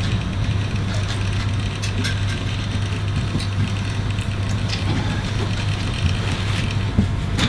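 A steady low mechanical hum, with a few faint clicks and rustles over it.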